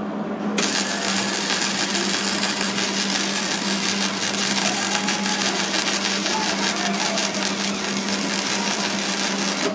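Hobart Handler 140 wire-feed welder arc crackling and sizzling steadily while laying a bead to repair a broken weld on steel, starting about half a second in and stopping near the end. A steady low hum runs underneath.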